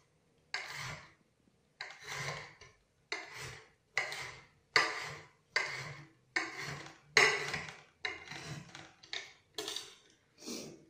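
Kitchen knife dicing a tomato on a cutting board: irregular cutting strokes about one to two a second, each starting sharply and trailing off.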